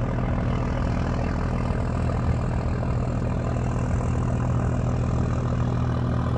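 Marine engines of a catamaran fast ferry under way at low speed, a steady low drone that holds one pitch throughout.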